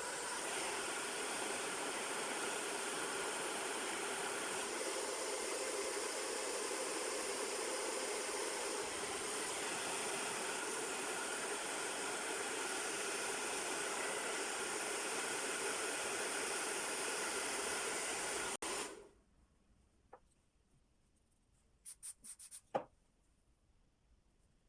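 Handheld hair dryer blowing steadily, drying Got2b Glued spray under a lace frontal so the lace sets flat. It is switched off about 19 seconds in, and a few light clicks follow a few seconds later.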